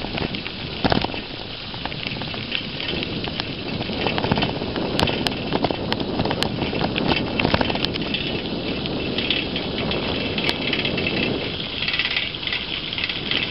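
Bicycle tyres rolling over a gravel road: a steady crunching hiss with many small clicks and rattles.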